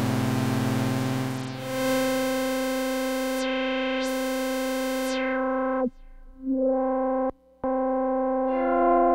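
Synthesizer music. A noisy hiss fades out and gives way to a held, buzzy synth note whose brightness sweeps up and back down. The note cuts out abruptly twice near the middle, and a second note joins near the end.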